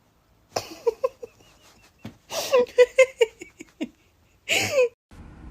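A person laughing in runs of short, rhythmic, high-pitched bursts, ending with one short gliding vocal sound near the end.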